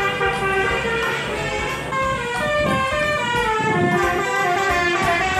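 Telolet bus horn playing its melodic multi-note tune, the notes stepping from pitch to pitch, over background music with guitar.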